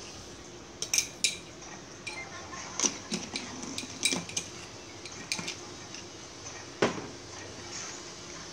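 Metal spoon clinking against the pot and a salt container while salt is spooned into the soup: about nine sharp clinks at uneven intervals, the loudest about a second in and again near seven seconds.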